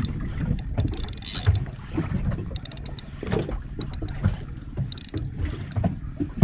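Speedboat under way: a steady low rumble with irregular knocks, and wind on the microphone.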